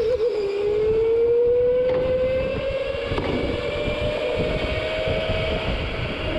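Go-kart running at speed, heard from the driver's seat: its pitch dips briefly about half a second in, then climbs steadily for several seconds as the kart accelerates and levels off near the end, over a constant rumble of track and chassis vibration.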